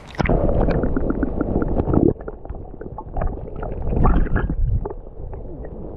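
Muffled sloshing and gurgling of water with many small clicks and bubble pops, heard through an action camera dunked underwater beside a hooked bass. The noise starts suddenly just after the start as the camera goes under, and swells again about two and four seconds in.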